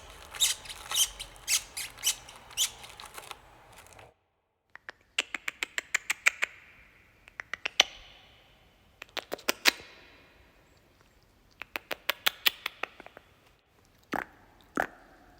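Rapid high-pitched squeaking in short bursts, several squeaks a second, with pauses of one to two seconds between the bursts.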